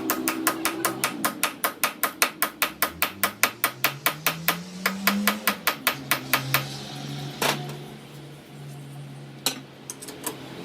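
Rapid, evenly paced hammer blows, about five or six a second, stopping about six and a half seconds in. Under them a workshop machine motor spins up and then runs at a steady hum. Two single sharp knocks come near the end.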